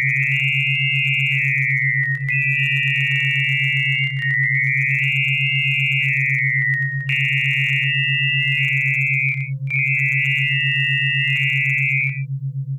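Synthesized test audio: a steady low tone under a high, shifting tone pattern that is the word 'PASADO' written into the sound's spectrum, a hidden-word signal for the listener to perceive. The high pattern stops near the end, leaving the low tone alone.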